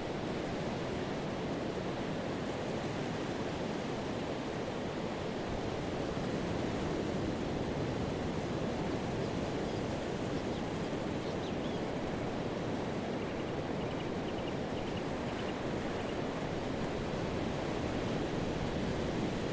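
Pacific surf washing continuously onto a sandy beach, a steady rush of waves and foam that swells a little louder twice.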